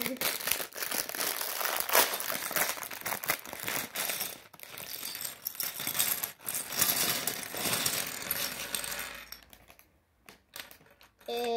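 A plastic polybag of small LEGO pieces being opened and tipped out, the ABS bricks clattering and rattling onto a wooden tabletop in a dense run of clicks and bag rustle. The clatter thins to a few scattered clicks after about nine seconds.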